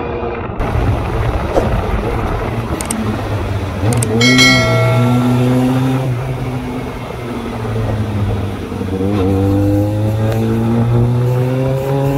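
Motorcycle engine revving and accelerating through the gears: a sharp rise and fall in pitch about four seconds in, then a steady climb in pitch over the last few seconds.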